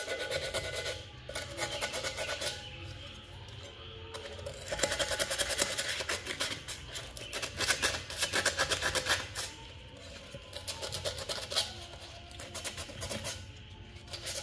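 Sandpaper rubbed quickly back and forth on a metal mug beside its handle, in runs of fast scraping strokes with short pauses; the strokes are densest and loudest in the middle.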